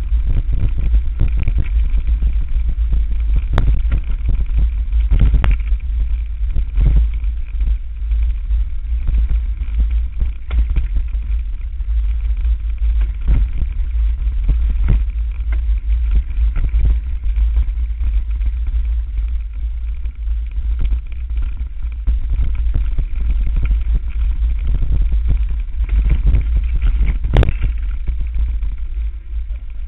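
Steady low wind rumble on the microphone of a camera riding on a mountain bike going downhill on a dirt trail, with irregular knocks and rattles from the bike jolting over bumps and roots; the sharpest knock comes near the end.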